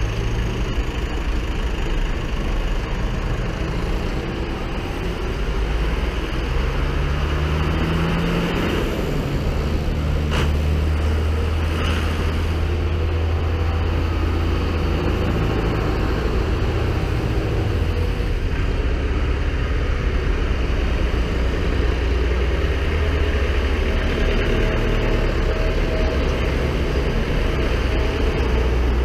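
A procession of diesel farm tractors driving past one after another, their engines running steadily at road speed, a low drone that swells and fades as each tractor goes by.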